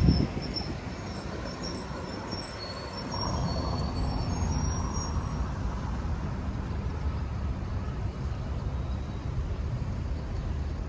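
City street ambience: a steady low rumble of road traffic, with a few faint, thin high-pitched tones in the first half.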